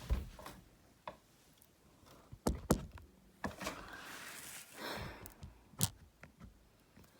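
A camera being set down and positioned on a surface. It gives a string of sharp knocks and clunks, a pair close together about two and a half seconds in and another near the end, with some rustling between them.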